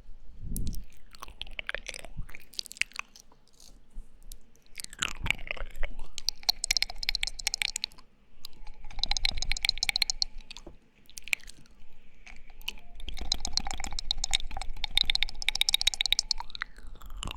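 ASMR mouth sounds close to the microphone: wet clicking and smacking of lips and tongue, in several runs of rapid clicks with short pauses between.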